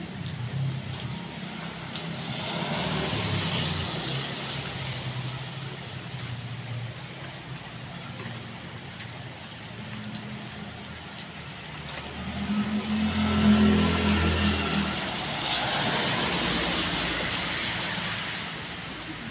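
Motor vehicles passing along a wet road, their tyres hissing on the wet surface as each swells and fades; about two-thirds of the way in, one passes close with its engine hum loudest.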